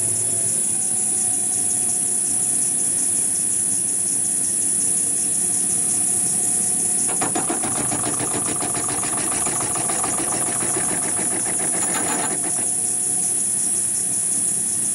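Metal lathe running, turning down a metal workpiece with the cutting tool. From about seven seconds in to about twelve seconds, a rough, rapidly repeating cutting noise rises over the steady running of the machine, then stops.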